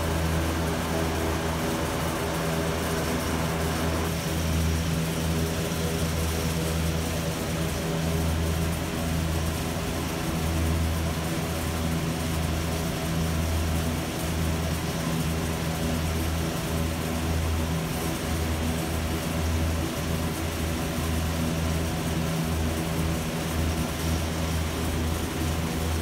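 Steady low hum of industrial machinery running, a strong drone with overtones that wavers slightly in level; an extra hissing layer higher up drops away about four seconds in.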